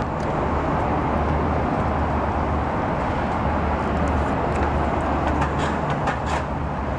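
Steady road traffic noise: a constant low rumble and hiss of passing vehicles, with a few faint clicks in the second half.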